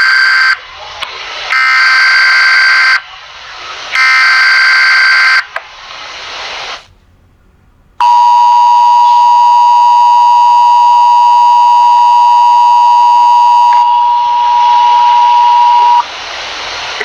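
Emergency Alert System tornado warning tones. First come three harsh digital header bursts of about a second each, the first already under way, each with an echoing tail. After a short gap the steady two-tone EAS attention signal sounds for about eight seconds, then cuts off into a fading echo.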